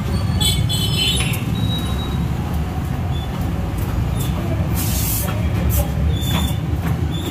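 Street traffic noise: a steady low rumble of passing vehicles, with a short horn toot in the first second and a few brief hisses later.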